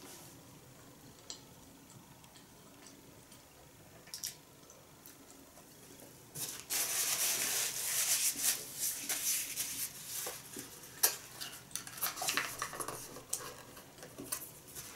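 Rustling and crinkling of food packaging handled by hand at a table, with sharp clicks and taps of containers and tableware. The first several seconds are quiet with only a few small clicks; the rustling starts suddenly about six and a half seconds in and is loudest over the next few seconds.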